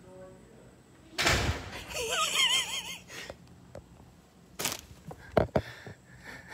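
A sudden rush of noise about a second in, then a wavering, warbling tone lasting about a second. After that come a few sharp knocks and clicks as the phone is picked up and handled.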